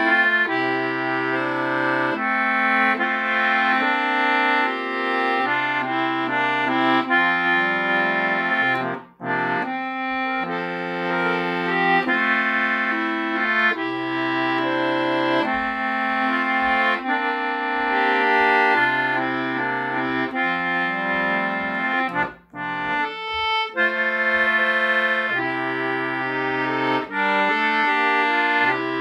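Duet concertina playing a hymn tune in held chords over bass notes, with two short breaks between phrases, about nine and twenty-two seconds in.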